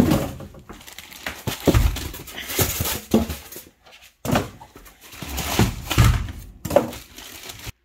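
Unpacking a cordless nail gun: the cardboard box, its foam insert and the plastic bag around the tool are handled and rustle, with a few dull thumps as they are set down on a concrete floor.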